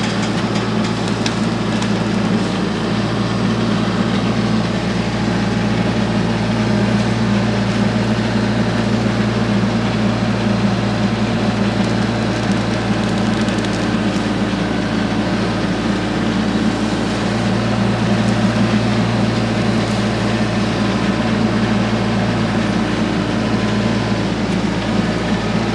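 A TYM compact tractor's diesel engine runs steadily at working speed, its even hum unbroken throughout.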